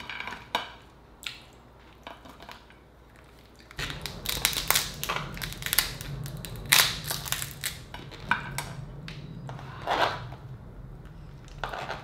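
Cooked Dungeness crab shell being cracked and snapped apart by hand. A few sharp cracks come first, then a dense run of cracks and crunches from about four seconds in.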